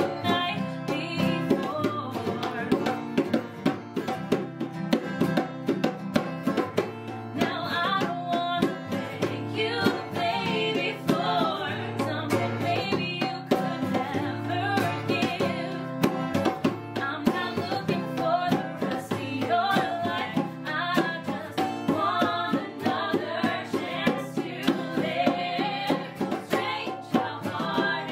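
A woman singing, accompanied by two strummed acoustic guitars and a hand drum keeping a steady rhythm.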